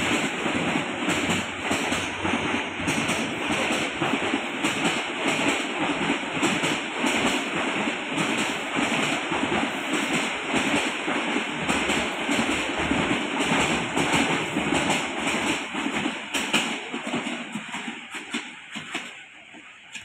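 Passenger train coaches rolling past, wheels clicking over the rail joints, the sound fading as the last coach draws away near the end.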